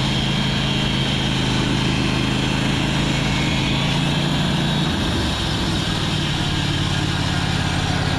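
Sawmill engine running steadily, its note changing about five seconds in and then holding steady again.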